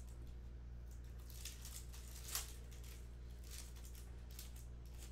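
Panini Hoops basketball cards handled and sorted by hand: a few soft slides and flicks of card stock, the sharpest about two and a half seconds in, over a steady low hum.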